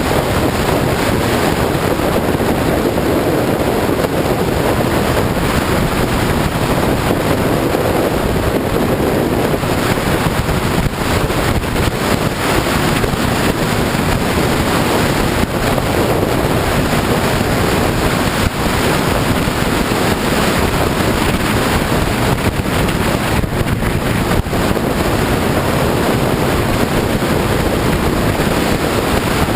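Steady, loud wind rush buffeting the microphone of a camera on a sport bike riding at speed; the bike's engine and road noise are buried under it.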